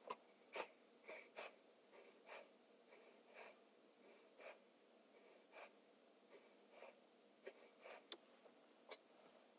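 A man's short, faint breaths of effort, roughly one a second, as he does repeated sit-ups. A couple of sharper clicks come near the end.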